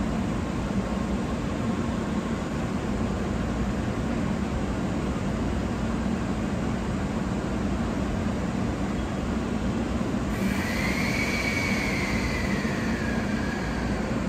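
Steady low hum and rumble of a train at a station platform. About ten seconds in, a higher whine starts suddenly, rises, then falls away.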